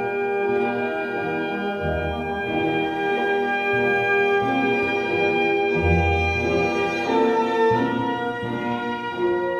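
Slow instrumental background music: held chords that change every second or two, over low bass notes.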